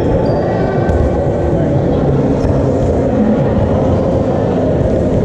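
Many overlapping voices talking and shouting at once in a sports hall, a loud, muddled din.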